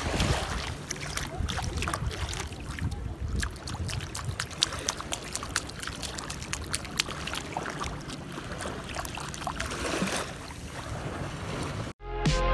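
Shallow surf washing up over bare feet and wet sand, with wind buffeting the microphone and many small crackles and clicks. Music starts abruptly near the end.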